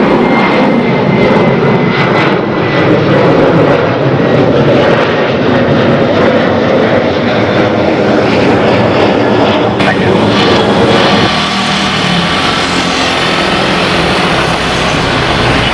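Jet engines of a Boeing 737 at takeoff power as it climbs away, loud and steady. About ten seconds in the sound shifts to the engines of a second Boeing 737 accelerating down the runway on its takeoff roll.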